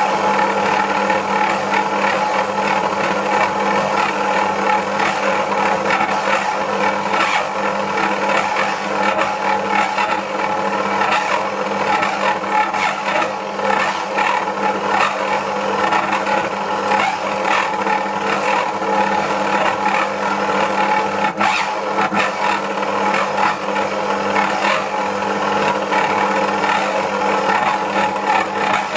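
Dualit 88013 stand mixer's motor kneading a stiff bread dough, with a steady hum and a wavering, rattling strain throughout and one sharp knock about two-thirds of the way through. The owner hears it as the mixer struggling and skipping speeds, although the load is within its rated maximum.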